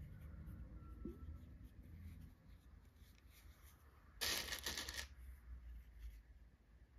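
Faint rustling as a crocheted amigurumi piece is handled, then about four seconds in a short, clattering rattle of loose plastic safety eyes as a hand picks one out of a compartment box.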